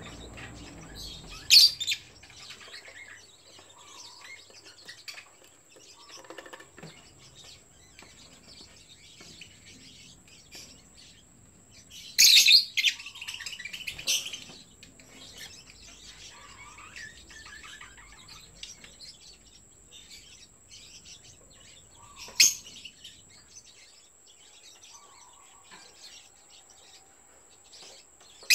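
Yellow lovebirds calling: a few short, loud, high-pitched call bursts, the loudest about twelve seconds in, with softer chirps and clicks between.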